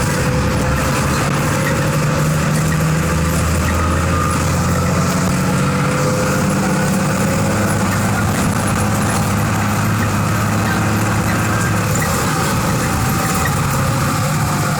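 Diesel engine of a Volkswagen 17.210 EOD bus running steadily, its pitch shifting slightly a few times.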